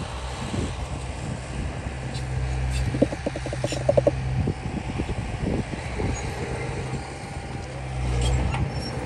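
Diesel engine of heavy earthmoving machinery running steadily and swelling under load twice, with a burst of rapid metallic clatter about three seconds in.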